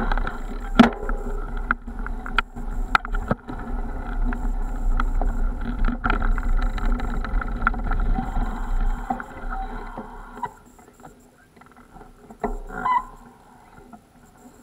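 Bicycle riding over rough dry ground heard from a camera carried on the bike or rider: a steady rumble of vibration and wind with frequent rattling clicks and knocks. It dies down about ten seconds in as the bike stops.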